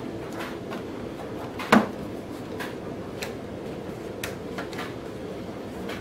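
Plastic fairing panel on a motorcycle being worked loose and pulled away by hand: a run of light plastic clicks and knocks, with one sharp, much louder snap a little under two seconds in as its push-in prongs let go.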